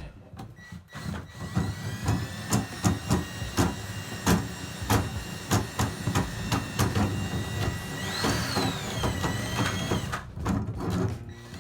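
Electric drain-cleaning machine running with a steady whine while its cable knocks and clatters irregularly. About eight seconds in the whine rises and then falls in pitch, and the motor stops about ten seconds in.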